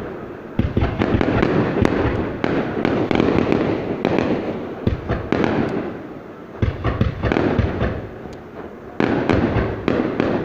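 Aerial fireworks display: a dense, continuous run of booms and crackling bursts. It swells in three waves, picking up again about half a second in, near seven seconds and near nine seconds.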